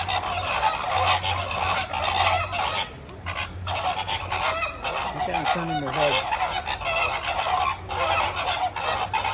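A loud, dense chorus of many birds calling at once in a honking flock, with short lulls about three seconds in and near eight seconds.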